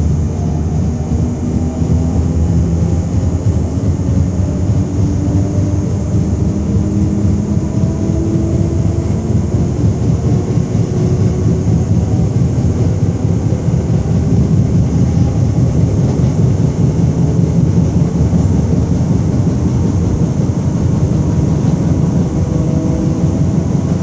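SNCF Z 20500-series (Z2N) electric multiple unit Z 20822 standing at the platform, its onboard equipment running with a steady, loud low hum and a few faint tones that slowly rise in pitch.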